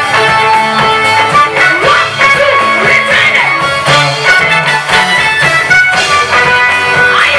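Gospel music led by guitar, with sustained pitched parts over a steady beat.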